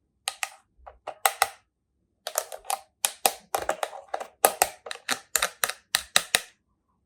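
Rapid crisp clicks and crackles of doll packaging being handled and opened, in irregular bunches with a short pause about two seconds in.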